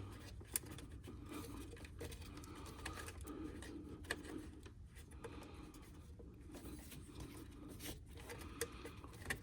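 Faint scattered clicks and light scraping of plastic as the red locking tab on a wiring connector is pried and the plug worked loose by hand, over a low steady hum.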